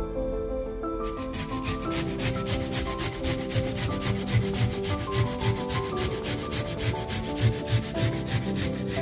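Onion being grated on a flat metal hand grater: a long run of quick, rhythmic grating strokes, several a second, starting about a second in, over background music.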